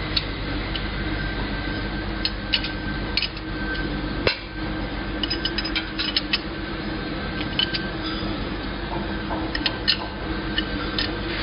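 Metal clinks and ticks of a wrench working the bolts on a split-type colloid mill's steel housing, with a sharper knock about four seconds in, over a steady machine hum.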